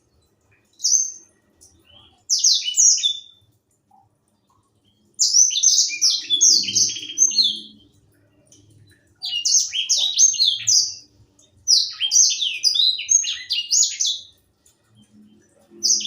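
Young grey singing finch (edel sanger) singing: six quick phrases of rapid, high, falling chirping notes with short pauses between them. The longest phrases run about two and a half seconds.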